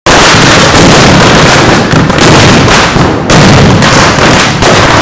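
Firecrackers packed into a burning effigy going off in a very loud, dense string of crackling bangs, with short lulls about two, three and four and a half seconds in.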